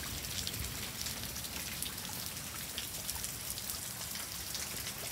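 Steady rain falling, an even hiss with many separate drop hits ticking through it.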